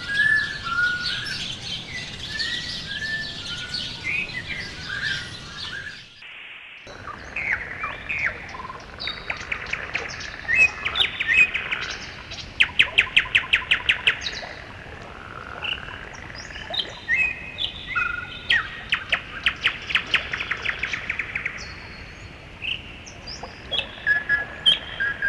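Several songbirds chirping and singing, with repeated fast trills; the sound drops out briefly about six seconds in.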